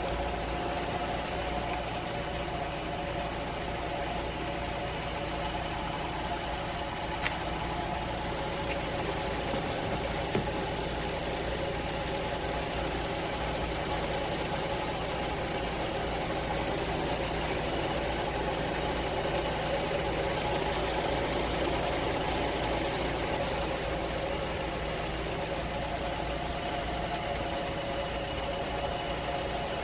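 A motor running steadily, an unbroken mechanical hum with a slight rattle, and a couple of faint clicks about a third of the way through.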